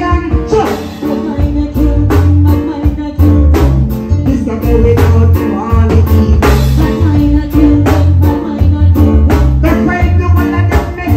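Live band with a male singer, drum kit, bass, keyboard and guitar playing reggae with a steady beat and a heavy bass line.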